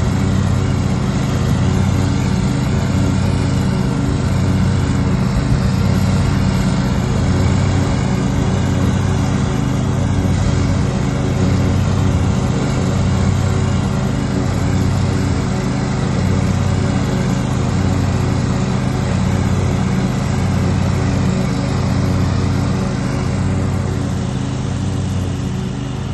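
Riding lawn mower engine running steadily with its blades cutting through tall meadow grass, a slow regular throb in its low hum; it fades slightly near the end as the mower moves away.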